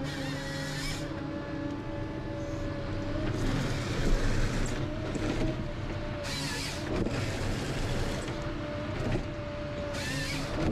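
Ponsse Scorpion King harvester running, its engine and hydraulics giving a steady hum with a constant whine, broken by several louder rushing bursts as the H7 harvester head works a tree.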